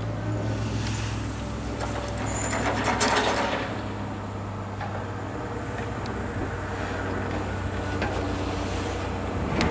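PESA Elf EN76 electric multiple unit arriving slowly at a station platform. Its running noise is a steady low hum under a rushing rumble, which swells about three seconds in, with a brief sharp click near the end.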